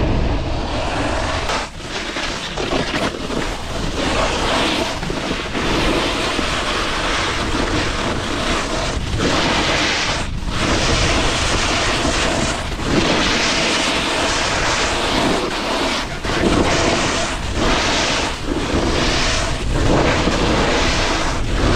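Snowboard sliding over wet snow: a steady rushing hiss that drops briefly every second or two as the board changes edge, mixed with wind rushing over the microphone.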